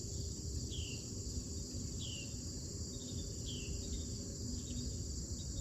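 Steady high-pitched chorus of crickets on an August morning, with short falling chirps repeating about every second and a half over a low steady rumble.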